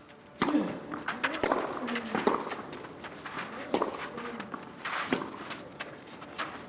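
Tennis ball struck back and forth by rackets in a rally on a clay court: sharp pops every second or so, starting about half a second in with the serve.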